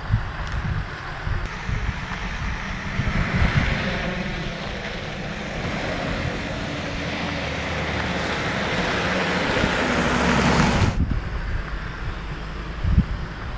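Wind gusting on the microphone, with a broad rushing hiss that builds for several seconds and cuts off suddenly about eleven seconds in.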